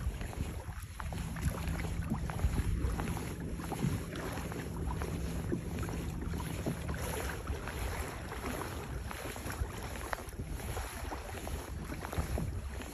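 Wind buffeting the microphone and water swishing along the hull of a Hobie Outback kayak under way, as a steady rushing noise.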